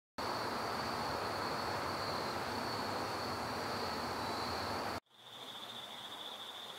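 Night insects trilling steadily at a high pitch over an outdoor hiss. About five seconds in the sound cuts to a quieter recording, where a similar steady insect trill sits a little lower in pitch.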